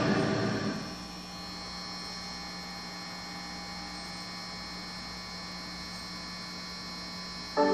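Steady electrical mains hum through a television's speaker while the broadcast sound drops out. Music fades away in the first second and comes back abruptly near the end.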